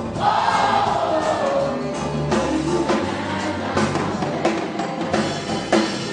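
Mass church choir singing gospel music, led by a solo singer on a microphone, over a steady low accompaniment with sharp drum strokes.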